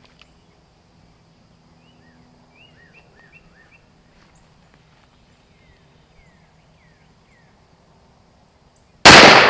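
A single .44 Magnum gunshot near the end, sudden and very loud, ringing out briefly. Before it, only quiet open-air background with a few faint chirps.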